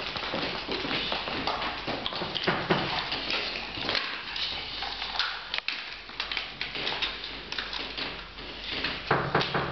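Quick, irregular footsteps of children's boots and shoes tapping on a wooden parquet floor.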